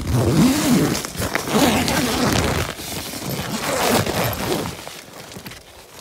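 Nylon tent fabric rustling and crinkling loudly in several bursts, starting suddenly and dying down near the end, as it is moved and handled.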